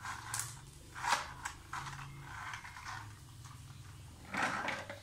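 Small plastic toy vehicles handled, knocked and scraped on a tiled floor: scattered clicks and short scrapes, a few louder ones about a second in and near the end.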